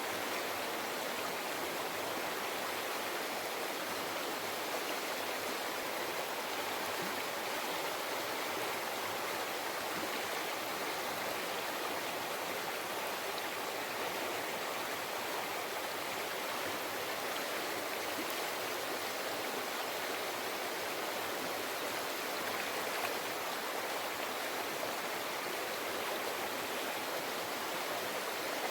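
River flowing: a steady, even rush and babble of running water.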